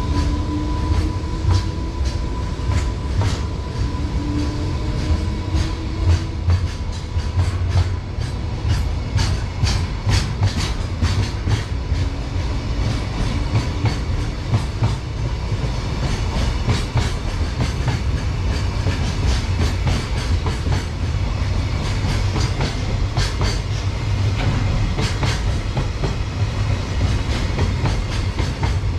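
JR Freight container train's wagons rolling past: a steady heavy rumble of wheels on rail with rapid clickety-clack as the wheels cross rail joints, the clicks thickest in the middle and again near the end.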